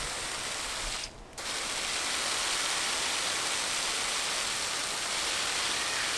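Garden hose spray nozzle on its mist setting, giving a steady hiss of fine water spray. It cuts out briefly about a second in, then resumes.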